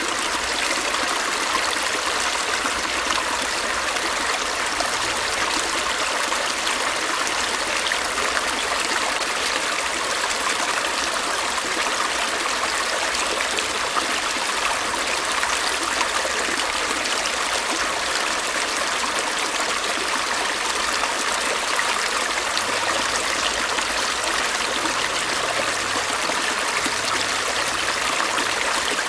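Stream water running and splashing over stones in a steady, even rush.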